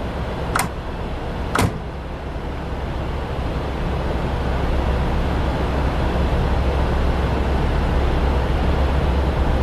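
Low, steady rumbling drone that slowly swells, with two sharp clicks about a second apart near the start.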